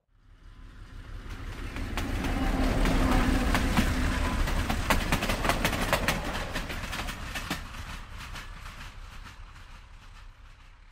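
Steam train hauled by the LNER Class A4 locomotive No. 60009 Union of South Africa passing at speed. The rumble swells as it approaches, is loudest for a few seconds as the locomotive and coaches go by with a rapid clatter of wheels over the rails, then fades away as the train recedes.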